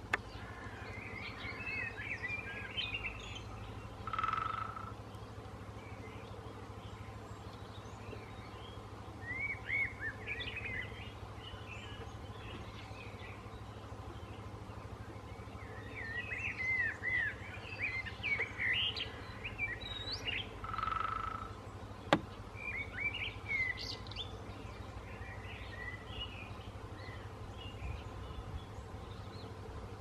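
Woodpecker drumming on a hollow wooden utility pole: two rolls, each a rapid run of strikes under a second long that makes the pole ring, about 4 seconds in and again about 21 seconds in. Small birds chirp throughout, and a single sharp click comes about 22 seconds in.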